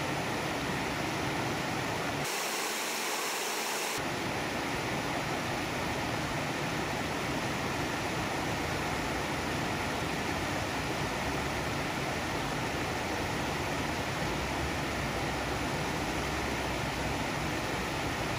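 Steady rush of water pouring out of culvert pipes into a stream. About two seconds in, the low rumble drops out for a second and a half, then comes back.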